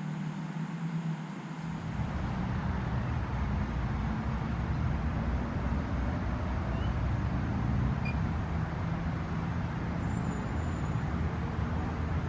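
Steady rumble of road traffic, its low end coming in abruptly about two seconds in. A faint tone rises slowly near the end.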